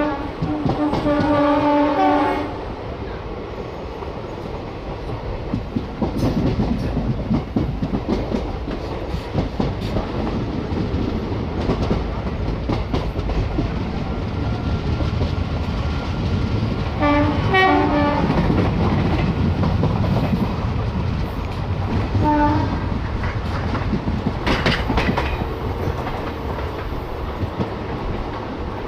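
Express train running at speed, heard from on board: steady rolling noise and wheels clattering over the rail joints. The horn sounds for about two seconds at the start, again in short broken blasts a little past the middle, and once more briefly a few seconds later.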